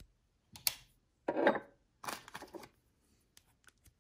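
Handling sounds from a BESS knife-edge sharpness tester and its test-media strips: three short rustling, scraping noises in the first three seconds, the middle one loudest, then a few faint clicks.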